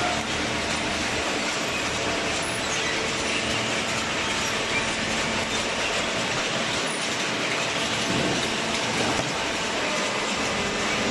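Steady mechanical machinery noise, a dense even rush with a few faint steady tones.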